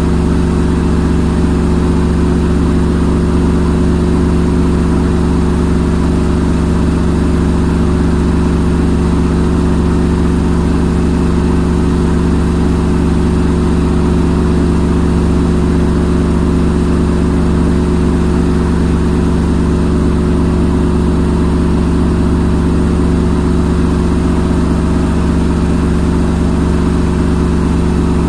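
Front-loading washing machine in its spin cycle: a steady, unchanging drone of the spinning drum with a low hum.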